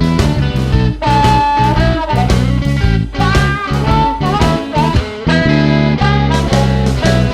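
Background music: guitar-led instrumental with a steady bass and beat, the guitar bending notes.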